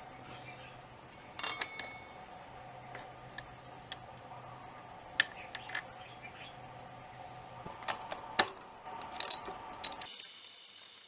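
Scattered metal clicks and clinks of hand tools and hardware on a Sur Ron electric dirt bike's rear axle and chain adjuster being handled, the loudest about a second and a half in and around eight and nine seconds in, over a steady faint hum.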